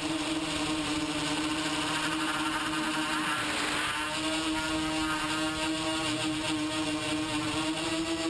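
TBS Discovery quadcopter's brushless motors and propellers whining steadily in flight, a buzzing hum of several even tones whose pitch wavers slightly as the throttle changes, heard from the camera mounted on the frame.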